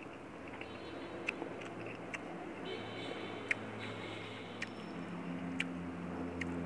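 A person chewing and eating, with scattered sharp little clicks, over a steady low hum.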